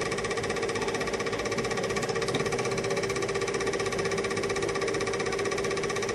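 8mm film projector running: a rapid, even mechanical clatter over a constant motor hum.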